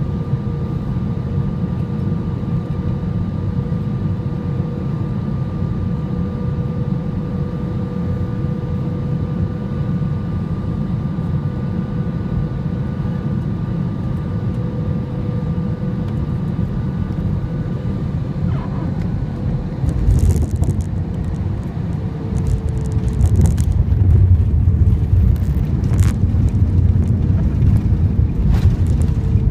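Cabin noise of a Boeing airliner descending to land: a steady engine and airflow rumble with a steady whine. About twenty seconds in the rumble grows louder and rougher, with scattered rattles, and the higher whine drops away.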